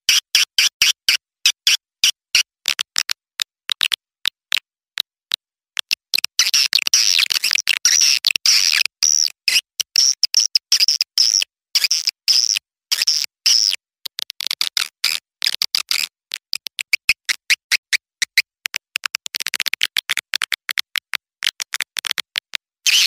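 Recorded calls of young swiftlets: rapid, densely repeated high chirps that thicken into continuous twittering for a few seconds at a time. It is a swiftlet call-sound lure, played to draw swiftlets into a nesting house.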